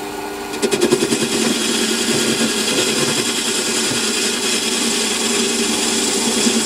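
Metal lathe spindle running at just under 700 RPM while a turning tool cuts a cast-iron bar: a steady motor hum, joined about half a second in by a rapid gritty crackle of the tool breaking off small cast-iron chips.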